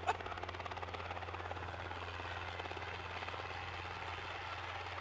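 Helicopter hovering, its rotor making a steady, fast chop over a low engine hum.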